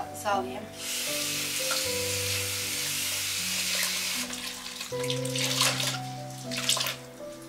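Kitchen tap running for about three seconds, starting about a second in, over soft background music. A few light knocks of kitchenware follow near the end.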